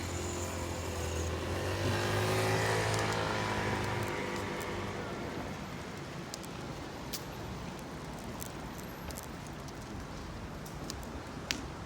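A motor vehicle driving past, its engine note swelling and bending in pitch over a few seconds and then fading into a steady background noise, with a few faint clicks.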